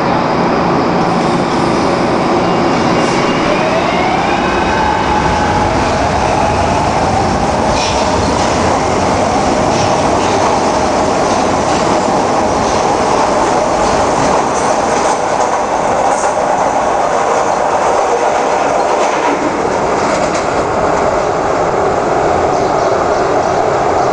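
SEPTA Market-Frankford Line train pulling out of an elevated station: the traction motors' whine climbs in pitch in steps a few seconds in, then holds steady while the wheels click over the rail joints as the train moves off.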